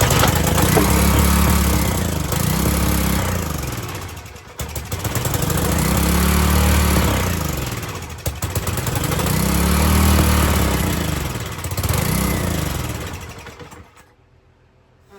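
Small single-cylinder Briggs & Stratton 3.75 HP pressure-washer engine running on a little gas poured into the carburetor, surging up and down in speed about four times, then dying about fourteen seconds in.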